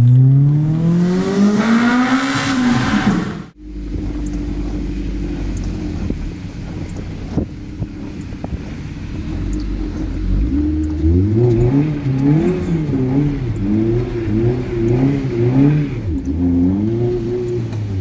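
Toyota car engine heard from inside the cabin. It revs in one long climb in pitch that cuts off abruptly about three and a half seconds in, then settles to a steady idle. From about ten seconds in it gives a string of quick rev blips, each rising and falling.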